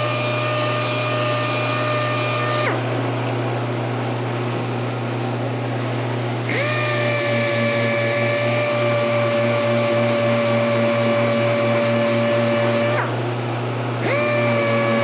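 Pneumatic random orbital sander whining steadily as it sands a guitar neck, cutting off about three seconds in, starting again a few seconds later with a brief dip in pitch as it spins up, then stopping and restarting once more near the end. A steady low hum runs underneath throughout.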